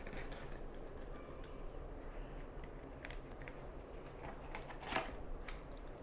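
Box cutter scoring packing tape on a cardboard box, then the cardboard being pulled open: soft scratchy scrapes and a few clicks, the loudest about five seconds in.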